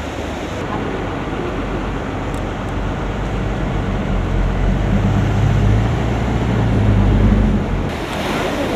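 Vehicle driving through deep floodwater: a steady rush and splash of water with a low engine rumble that grows louder in the middle.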